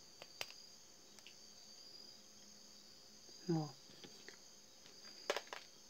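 Faint clicks and taps of plastic pearl beads and a needle being handled while beading with nylon line, over a steady high-pitched whine.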